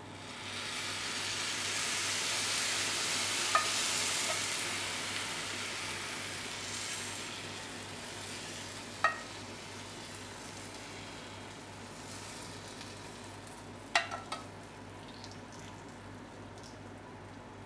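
Hot semolina cake sizzling as sugar syrup is ladled over it: the hiss swells over the first couple of seconds, then slowly dies away as the syrup soaks in. A metal ladle clinks sharply against the tin three times.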